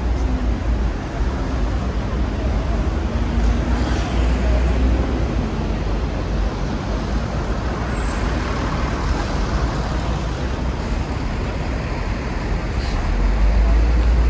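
Steady traffic noise from a busy city road, with a low engine rumble that swells as heavier vehicles go by, about four seconds in and again near the end.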